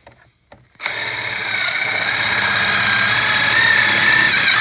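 Ridgid 18V cordless driver running under load, starting about a second in and running for nearly four seconds as it drives a 3/4-inch self-tapping screw through the plastic tool box floor into the mounting bar. Its pitch rises slightly near the end.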